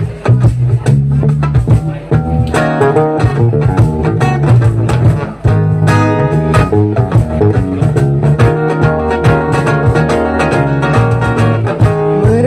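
Instrumental passage of a live song, led by a guitar strummed in a steady rhythm over a bass line.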